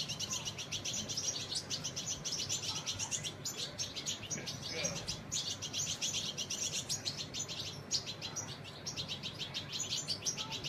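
Several juvenile European goldfinches chirping rapidly and without pause in high-pitched calls. These are begging calls while they are fed from a spoon.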